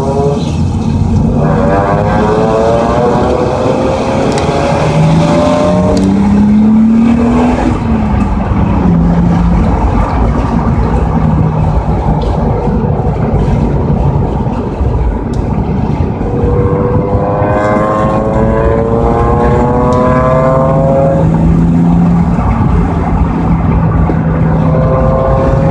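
A car's engine heard from inside the cabin, accelerating hard, its pitch climbing through the revs several times and dropping back at each gear change, over steady road and wind noise.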